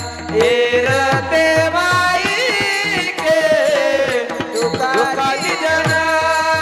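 Marathi devotional bhajan: a voice singing a held, ornamented melody over steady sustained instrumental tones, with regular strokes on a hand drum whose low notes bend downward.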